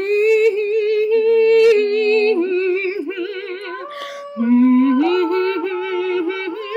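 A woman singing a wordless melody a cappella: long held notes with a wavering vibrato, in two phrases with a short break about four seconds in.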